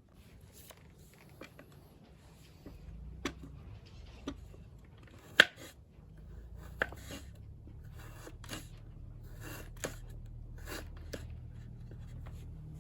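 Irregular clicks, taps and rustles of things being handled, with one sharp click about five seconds in, over a low steady rumble that starts about three seconds in.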